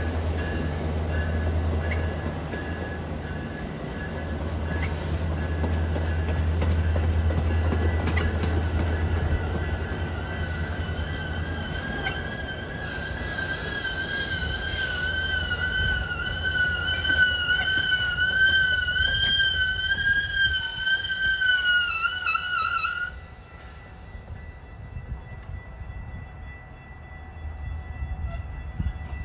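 Metra bilevel commuter train rolling into the station and braking to a stop: a low rumble under a wavering high-pitched squeal that rises and falls, cutting off about 23 seconds in as the train comes to rest, after which the sound drops to a quieter idle.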